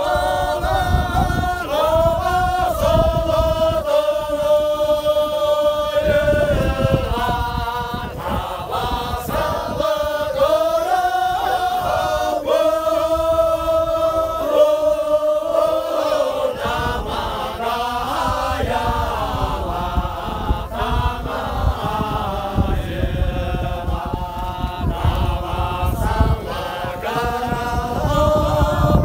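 A group of men singing together unaccompanied in a chant-like song, holding long notes.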